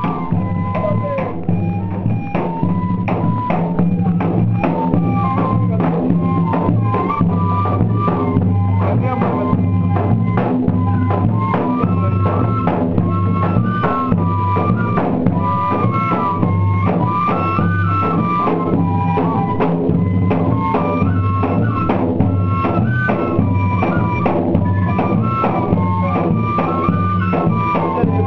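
Banda de pífanos music: a fife plays a stepping, repeating melody over steady bass drum and snare drum beats.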